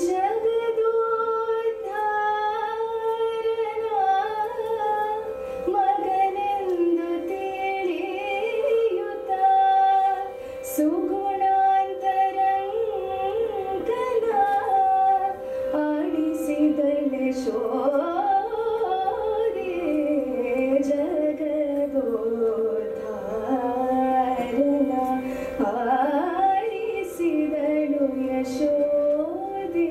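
A woman singing a Carnatic prayer song solo, her voice gliding and bending around the notes over a steady drone.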